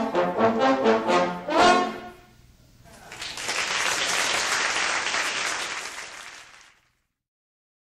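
Trombone ensemble playing the last chords of a piece, which ends about two seconds in. After a short pause an audience applauds for a few seconds, and the sound cuts off abruptly near the end.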